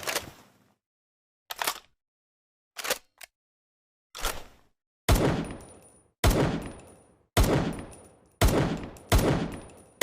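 Makeshift, homemade imitation of M1911 pistol shots: separate single sharp bangs about a second apart, about nine in all. The first few are short; from about halfway on they are louder, with long ringing tails.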